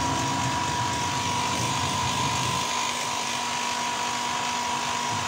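Airbrush compressor running with a steady whine and a constant hiss of air, with a low rumble that fades out about halfway through.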